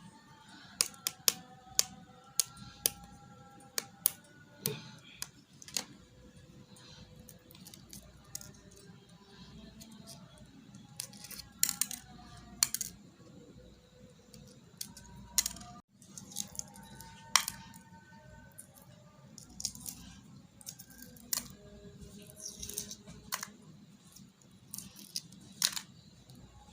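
Hard-boiled eggs being cracked and peeled by hand: irregular sharp clicks and crackles of breaking shell, some in quick clusters. Faint background music runs underneath.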